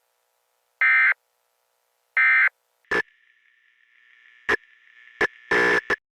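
Emergency Alert System end-of-message data bursts: the last two of three short, identical buzzing electronic chirps, about 1.3 s apart, that close the alert. After them, a faint steady tone with crackle sets in, broken by sharp clicks and a loud crackly burst of noise near the end.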